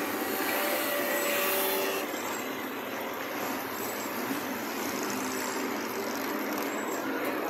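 A slow-moving line of cars running along the road, a steady mix of engine and traffic noise with no sharp revs.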